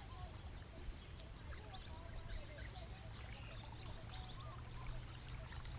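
Many small birds chirping and calling over a faint, steady low hum.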